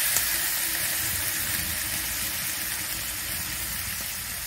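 Spiced diced potatoes sizzling in oil in an iron kadai, cooked through: a steady hiss that fades a little toward the end.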